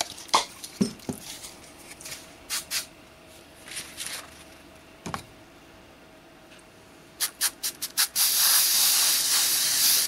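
Aerosol can of 3M Super 77 spray adhesive spraying: a steady hiss lasting about two seconds near the end, just after a quick run of clicks. Light handling knocks come earlier.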